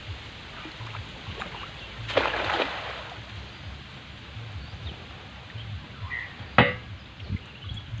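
A cast net landing on river water: a brief splashing hiss about two seconds in as the weighted net hits the surface. Later comes a single sharp knock, the loudest sound.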